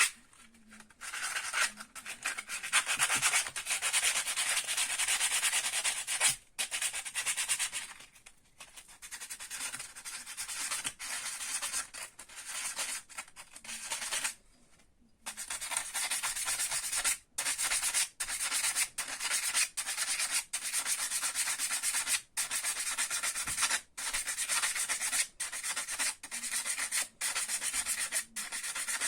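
Fine sandpaper rubbed back and forth over the corroded pole faces of a PME-series magnetic starter's steel core: a steady scraping rasp with short breaks between strokes. It eases off and pauses briefly about halfway, then goes on at roughly one stroke a second. This is the corrosion that made the starter hum being polished off.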